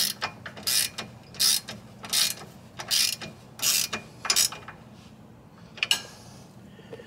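Ratchet wrench being worked in short back-and-forth strokes, about seven rasping ratchet strokes under a second apart, snugging down a sway bar end link bolt. It stops after about four and a half seconds, and one click follows near the end.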